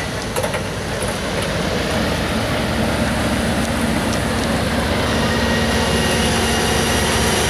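A heavy-haul MAN truck rig passes slowly: diesel engines drone and the tyres of a red many-axle modular trailer rumble under a large boat hull. The sound grows a little louder toward the end, and a thin steady whine joins about five seconds in.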